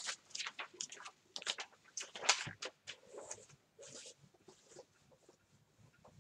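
Thin pages of a large book being turned and leafed through: a quick run of crisp paper rustles and flicks, thinning out after about three seconds into a few faint handling sounds.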